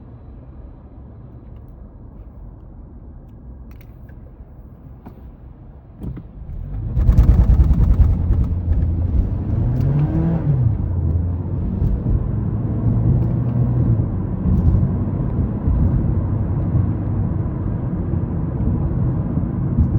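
Mazda 3 heard from inside the cabin: a quiet low engine and road rumble at first. About seven seconds in it gets much louder as the car pulls away, the engine pitch rising and then falling once. A steadier, louder driving rumble with tyre hiss on wet road follows.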